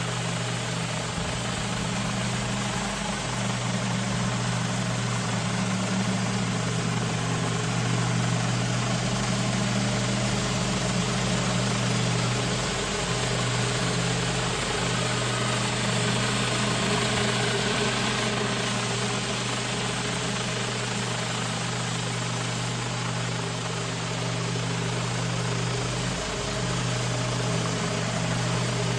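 Pressure washer's engine running steadily under load, with a steady hiss over it.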